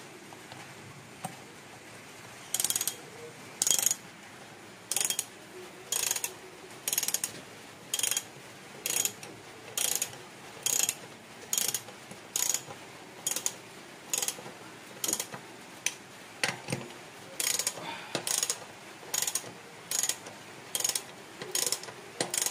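Ratchet socket wrench clicking in short bursts about once a second, one burst per stroke, starting a couple of seconds in.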